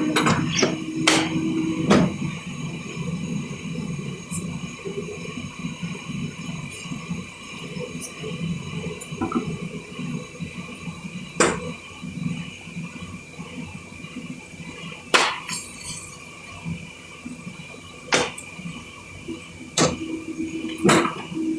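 Occasional sharp ticks and light taps from handling paper and a blade, about half a dozen spread out, over a low steady hum.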